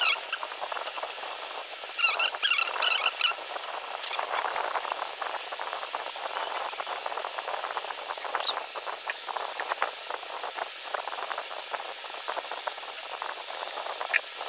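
Hands handling the small plastic discs and rod of a miniature model harrow, making dense small clicks and rustles. Short high squeaks come at the start and again about two seconds in.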